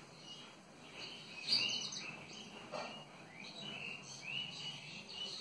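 Faint bird chirping: a steady string of short, high chirps repeating every fraction of a second, with one louder burst about a second and a half in.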